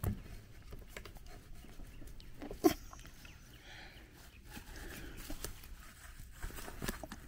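Small clicks and knocks of a grease gun's hose coupler being handled and pushed onto a riding mower's wheel grease fitting, with one sharper click about two and a half seconds in.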